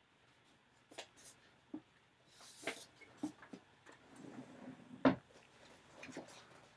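Faint scattered clicks and rustling in a quiet room, with a brief rustle about two and a half seconds in and one sharper click about five seconds in.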